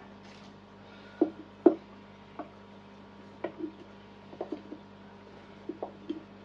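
Scattered light knocks and clicks as a piece of driftwood is handled and set in place inside a small glass terrarium tank, the two loudest coming close together between one and two seconds in. A faint steady hum runs underneath.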